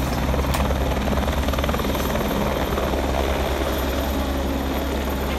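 Helicopter's turbine and rotor running close by with a steady, fast beating, as it lifts off from the ground.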